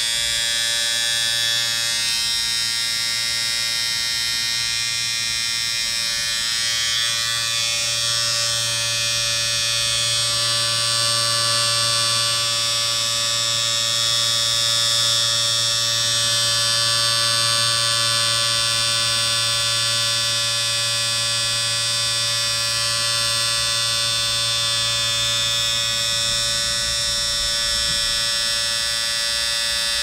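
Steady electric-shaver buzz running without a break at an even pitch and level.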